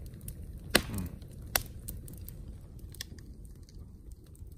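Wood fire in a metal fire pit crackling over a low steady rumble of flame. Three sharp pops stand out, the loudest about a second in. They come from freshly added resinous pine popping and throwing sparks.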